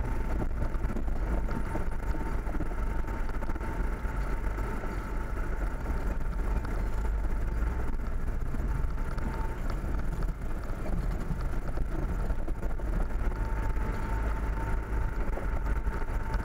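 Vehicle driving along a dirt track, heard from inside the cab: a constant low engine and road rumble with a steady faint whine over it.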